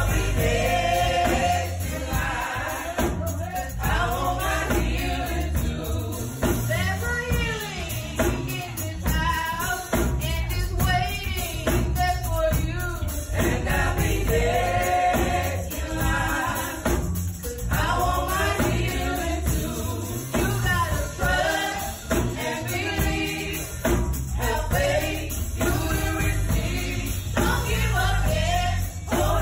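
Small gospel vocal group singing into microphones, with a live drum kit behind them.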